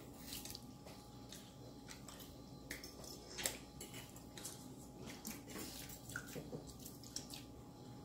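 Close, wet mouth sounds of eating: chewing on a soft mouthful of dressing, with frequent small lip-smacking clicks, the sharpest about three and a half seconds in.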